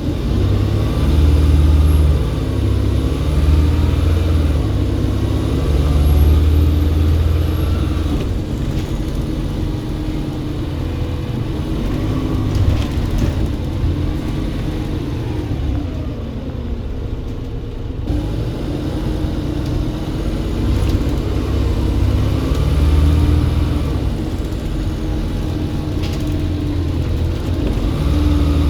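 Volvo B7RLE bus's turbocharged six-cylinder diesel working hard, its note climbing and dropping back in repeated surges as it accelerates through the gears, with a high turbo whistle over it. It eases off briefly just past halfway.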